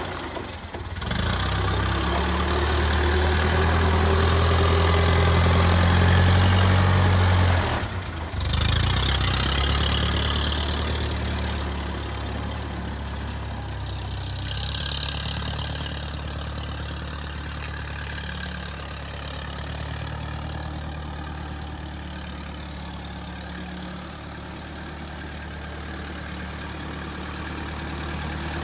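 Massey-Ferguson MF204 utility tractor's engine running as the tractor is driven, loudest for the first several seconds with two brief dips. It fades as the tractor moves off and comes back up near the end, with a short hiss twice in the middle.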